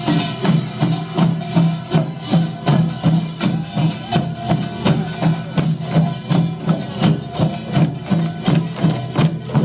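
Korean pungmul percussion band playing: gongs and drums beat a steady, driving rhythm of about two to three strokes a second.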